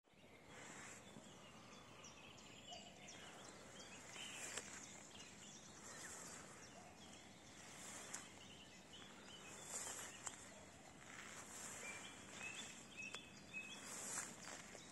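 Faint swishing and rustling of tall meadow grass brushed by slow steps, with a few short, faint bird chirps in the second half.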